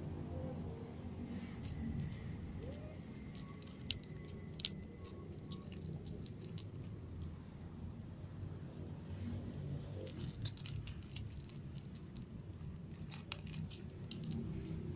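Cat eating dry kibble from a plastic tub: a run of short crisp crunches and clicks as it chews.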